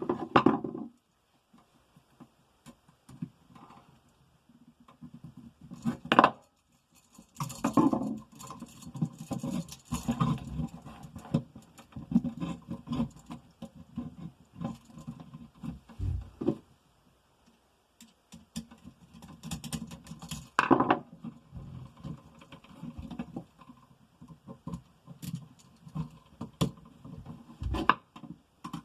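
Irregular clicks, scrapes and knocks of hands and tools working on electrical wiring at an outlet box, with short pauses between bursts of handling.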